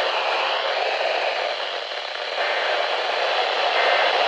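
Steady hiss and static from a radio picking up a weak, noisy broadcast signal, with no clear words.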